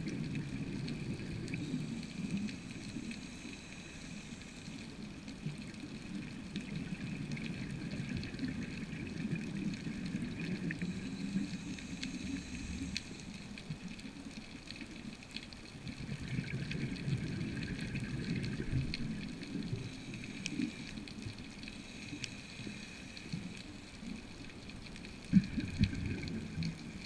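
Muffled water sound, as heard underwater: a fluctuating low gurgling rumble with scattered faint clicks, and one sharper knock near the end.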